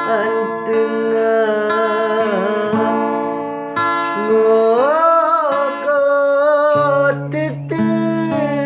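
A Sundanese song: a solo voice singing long, ornamented held notes over plucked-string accompaniment, with a lower bass line coming in near the end.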